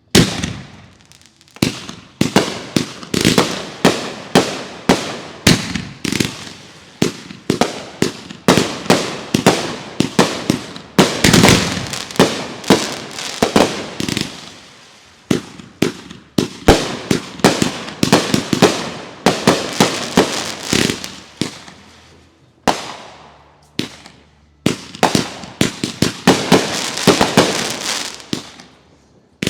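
Consumer fireworks going off in rapid succession: many sharp bangs, several a second, with short lulls about halfway through and again after about 22 seconds.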